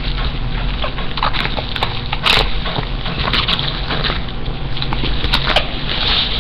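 Plastic parcel packaging crinkling and crackling in irregular rustles and clicks as it is handled, over a steady low hum.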